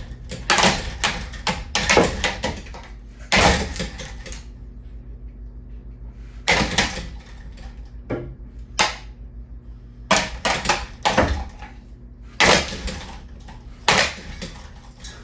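Ceiling fan parts being knocked, rattled and wrenched by hand: loud clattering knocks and scrapes that come in clusters every second or two.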